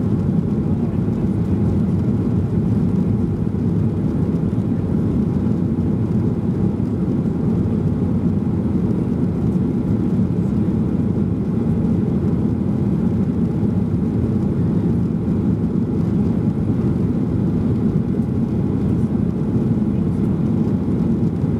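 Steady low cabin noise inside a Boeing 737-800 climbing out after takeoff: its CFM56-7B turbofans running and air rushing past the fuselage, even throughout with no changes.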